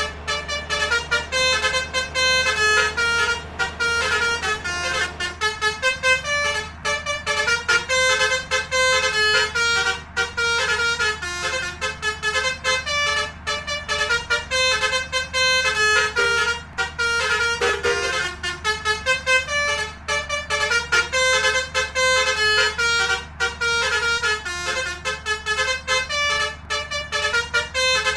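Indonesian 'telolet' multi-tone bus horn playing a long run of short melodic notes, one quick note after another, over the steady low hum of the bus.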